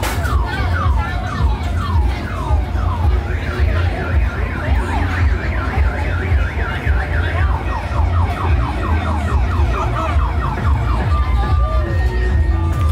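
Electronic alarm siren cycling through its patterns: repeated falling sweeps, then a fast warble from about three seconds in, falling sweeps again from about eight seconds, and short steady beeps near the end, over a steady low rumble.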